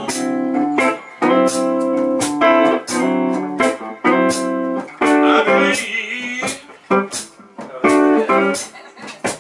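Amplified blues harmonica played through a hand-cupped microphone: short phrases of held chords, with wavering, bent notes about five seconds in.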